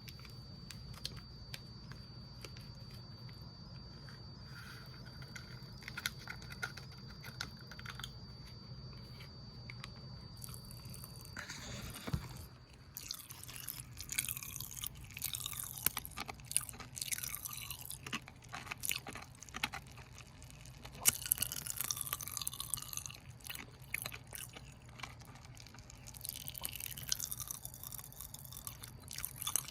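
Cola-flavoured popping candy crackling and popping in a mouth: a dense, irregular fizzing crackle that starts about twelve seconds in and comes in waves. Before it there are only sparse faint clicks under a steady faint high whine.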